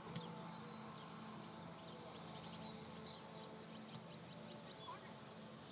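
Faint open-air ambience over a grass field: scattered short high chirps and a distant murmur of voices, with one soft knock just after the start.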